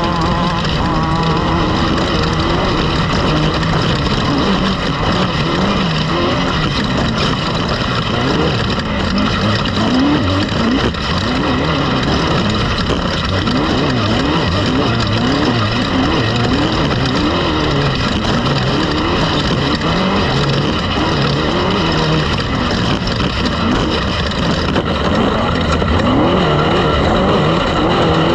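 A loud engine running, steady at first, then its pitch swinging up and down quickly and repeatedly from a few seconds in.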